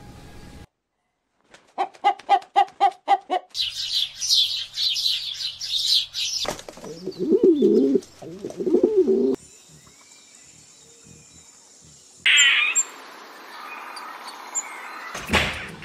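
Birdsong in several parts: a quick run of short calls at about four a second, then a burst of dense high chirping. After that, pigeons coo in low warbling phrases for about three seconds, and high chirping returns near the end.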